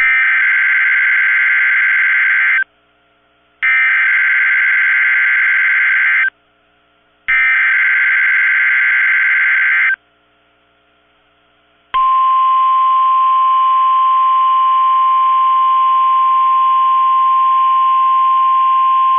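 NOAA Weather Radio Emergency Alert System activation heard through a radio receiver: three identical bursts of harsh digital SAME header data, each about two and a half seconds with a second's gap between them. About twelve seconds in, the single steady 1050 Hz warning alarm tone starts; together they announce a severe thunderstorm watch.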